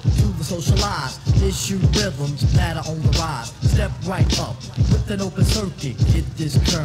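Hip hop track: a rapper's verse over a beat with a steady, evenly spaced kick drum and bass.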